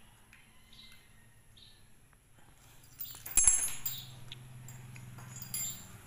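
Clicks and clinks of an alarm padlock and its dangling keys being handled, loudest as a sharp clatter a little over three seconds in and again briefly near the end. Faint bird chirps in the first couple of seconds, and a low steady hum after the clatter.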